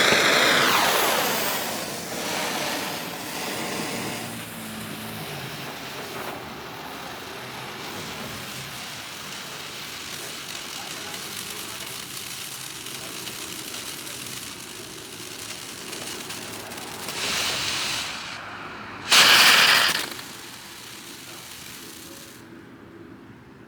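Novelty dragon ground firework burning with a steady hiss of spraying sparks, loudest as it gets going. Near the end it gives a short louder rush and then a brief, stronger whoosh before it dies down.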